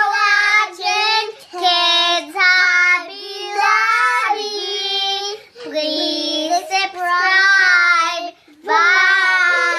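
A young child singing in a high voice, several phrases with short breaks between them.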